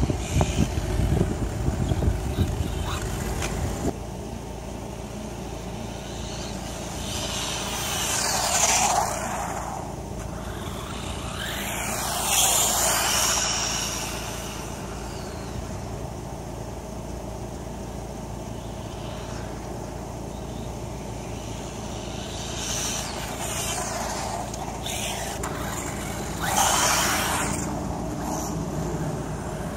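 Wltoys A959 1/18 RC buggy with a 2838 brushless motor on 2S LiPo, its motor and drivetrain whining as it speeds past three times, about 9, 13 and 27 seconds in; the pitch sweeps up as it nears and drops as it goes by. Wind rumbles on the microphone for the first few seconds.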